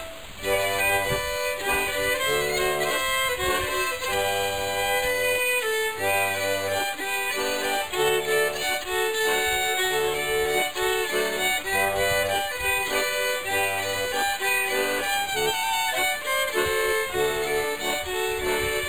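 A small Austrian folk music group playing live: two fiddles carry the tune over an accompaniment with bass notes that change about every second.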